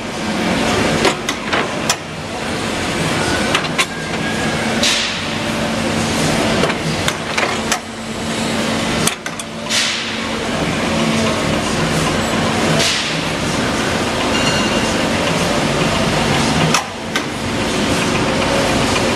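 Bystronic Edwards Pearson PR6 150-ton CNC press brake running: a steady machine hum with a held low tone, broken by scattered sharp knocks and clicks.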